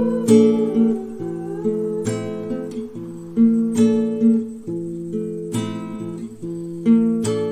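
Background music: acoustic guitar strumming slow chords, a fresh strum every second or two.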